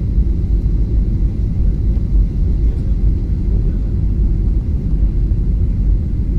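Jet airliner cabin noise on approach to landing: a steady low rumble of engines and rushing air, heard from inside the cabin at a window seat.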